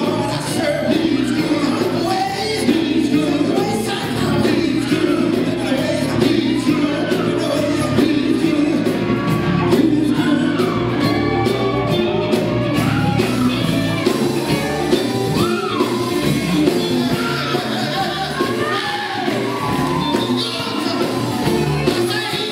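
A male vocal group singing live with electric guitar and bass guitar backing, loud and continuous.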